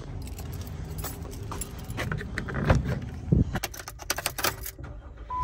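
A bunch of keys jangling on a keyring as a key is fitted into a Jeep Wrangler's ignition, as a string of light metallic jingles and clicks that get busier in the last couple of seconds. A steady electronic chime tone starts right at the end.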